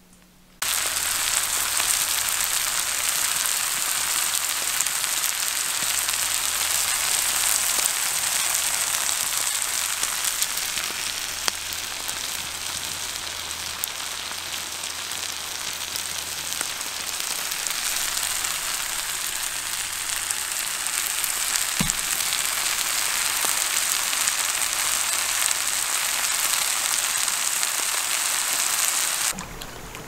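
Food frying in a pan over a campfire: a loud, steady sizzle full of fine crackles. It cuts in suddenly about half a second in and cuts off just before the end.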